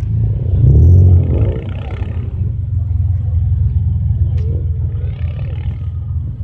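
Performance Vauxhall car's engine and exhaust rumbling as it drives slowly past, with a short rev about a second in that is the loudest part.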